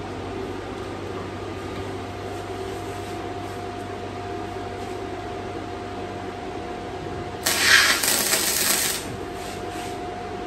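Steady low hum, then about two-thirds of the way in a wire-feed welder arcs on the steel frame: a short burst of sizzling, crackling welding noise lasting about a second and a half, then the hum again.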